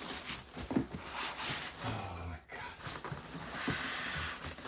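Irregular scraping and rustling as a stiff polystyrene-packed unit in a plastic bag is slid out of a tight cardboard box, foam and plastic rubbing against the cardboard.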